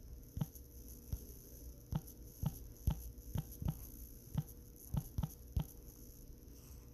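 Fingertip taps on a smartphone's touchscreen keyboard, about a dozen short taps at an uneven typing pace, over a faint steady hum.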